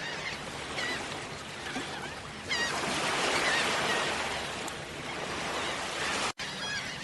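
Waterfall rushing steadily with small birds chirping over it. The water grows louder about two and a half seconds in, and the sound cuts out for a moment near the end before the chirping returns.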